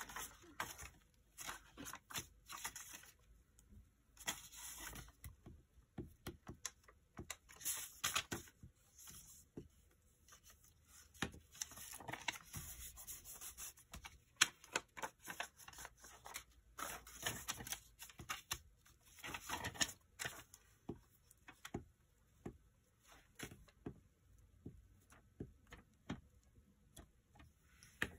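Paper envelopes being handled, folded and pressed flat on a cutting mat: bursts of paper rustling and sliding with scattered light taps and clicks, coming and going unevenly.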